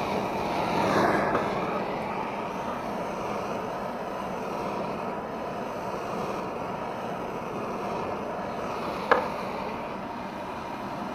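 Handheld blowtorch flame hissing steadily as it is played along a strip of wood to scorch and age it, swelling briefly about a second in. A single sharp click comes about nine seconds in.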